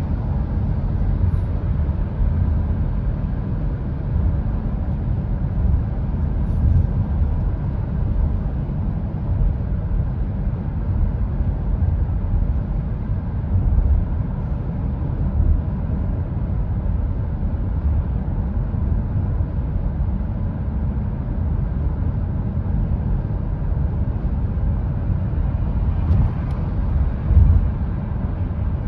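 Steady low rumble of road and wind noise inside the cabin of a 2022 Hyundai Tucson hybrid cruising at motorway speed, briefly louder near the end.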